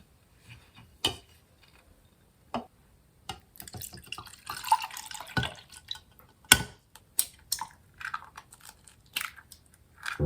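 Kitchen work with water: scattered clinks and taps, with a short run of trickling water a few seconds in.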